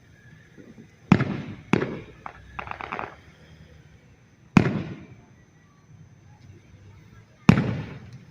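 Fireworks exploding overhead: four sharp booms, each trailing off in an echo, with a short run of crackling pops after the second boom.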